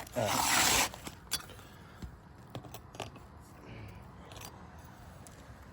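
A roofing tool scraping under an asphalt shingle in one short, loud scrape near the start, checking for leftover nails, followed by a few light clicks and taps.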